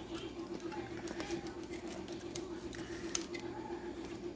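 Handling noise from a Canon AE-1 35mm film camera with its FD 50mm lens: a few faint clicks and light rustle as the lens barrel is gripped and the body is turned over. A steady low hum runs underneath.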